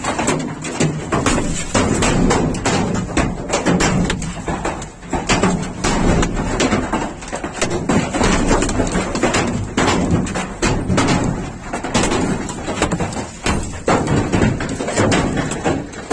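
Large hailstones pelting a car's roof and shattered windshield: a loud, continuous clatter of hard knocks, dense and irregular, heard from inside the car.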